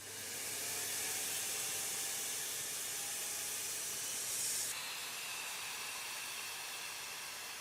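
Aeolian GT-II high-velocity pet blow dryer (force dryer) with an Ametek motor, winding up in the first second and then blowing a steady, hissing rush of air. A little over halfway through, the hiss drops abruptly and the blower runs on a little softer.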